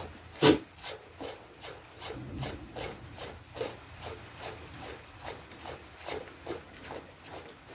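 Hand milking a goat into a metal pail: each squeeze sends a squirt of milk into the milk already in the bowl, a short hiss about two to three times a second. One much louder sharp sound comes about half a second in.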